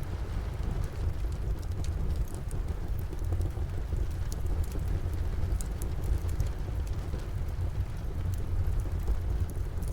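Steady rain falling, with a low rumble underneath, and a fireplace fire crackling in scattered sharp pops.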